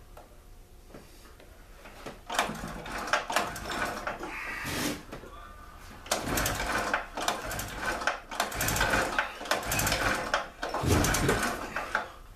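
The recoil starter of a small Chicago Electric two-stroke generator engine is pulled over and over, the engine spinning with each pull, to test whether it makes spark. One burst of pulling comes about two seconds in, then a longer run of pulls from about halfway through.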